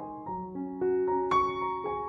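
Background piano music, single notes played one after another in a gentle melody, with a brighter high note about halfway through.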